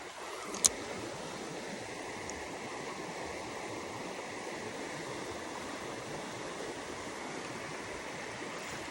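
Creek water running steadily, with one sharp click about a second in.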